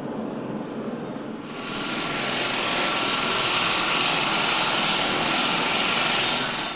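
Mi-8-type transport helicopter running on the ground: a steady rotor and turbine noise with a thin high whine, which gets much louder about one and a half seconds in.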